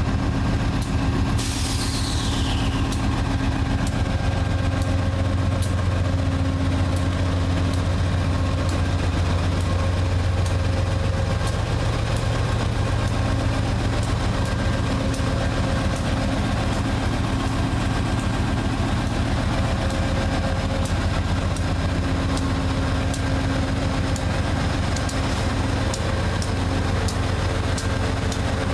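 GE P32-8 passenger locomotive's diesel engine running steadily while the train stands, a deep, even hum with a faint regular ticking. A short hiss with a falling tone comes about two seconds in.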